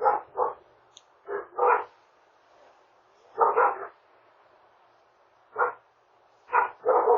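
A dog barking: about eight sharp barks in short groups of one to three, with pauses of a second or more between groups, heard through a doorbell camera's microphone.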